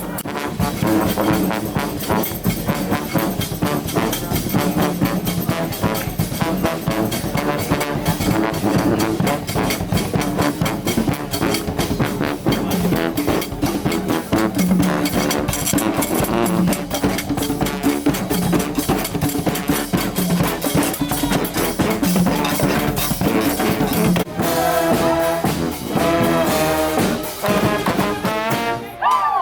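Street brass band playing: trombones and trumpets over a beating drum section. About 24 seconds in the sound changes to clearer, separate held horn notes.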